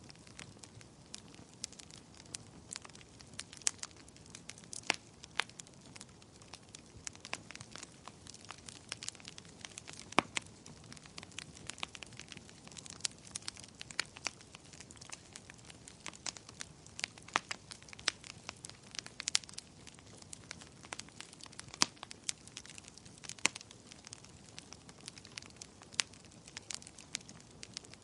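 Wood fire crackling: irregular sharp pops and snaps, several a second, over a soft steady hiss.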